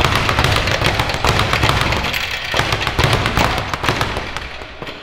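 Leather speed bag being punched in a fast, steady rhythm, rattling off its rebound board, stopping near the end.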